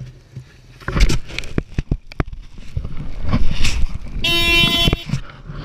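Off-road motorcycle engine running and revving unevenly on a rocky track, with stones knocking and clattering in the first half. About a second-long steady high-pitched tone sounds near the end.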